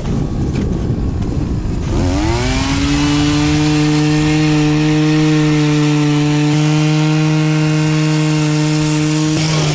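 Small gasoline engine running roughly, then revving up about two seconds in and holding a steady high speed, beginning to wind down at the very end.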